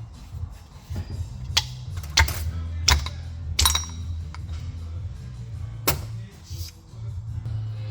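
Background music with a steady bass line, over which come several sharp metallic clinks and knocks, one of them ringing briefly, as metal parts are handled.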